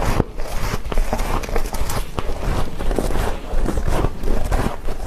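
Freezer frost being chewed close to a clip-on microphone: dense, irregular crunching and crackling with sharp crisp clicks, as the icy frost breaks between the teeth.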